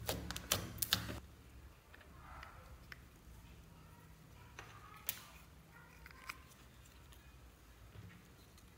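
Thick slime squeezed and kneaded by hand, giving a quick run of sharp wet pops and clicks in the first second. After that it is quiet except for a few faint clicks as a plastic makeup compact is handled.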